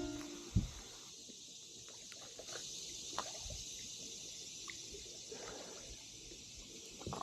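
Quiet outdoor ambience with a steady high hiss, a single low thump just over half a second in, and a few faint scattered knocks and clicks.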